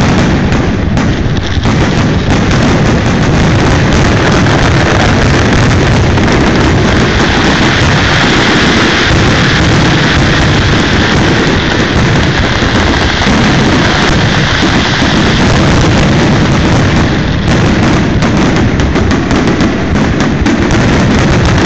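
Aerial fireworks shells bursting in a dense, unbroken barrage of booms and crackles, loud and constant throughout.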